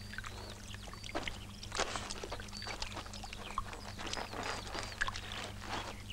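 Outdoor farmyard ambience: small birds chirping in short high calls, with scattered knocks and clatter of work, over a steady low hum.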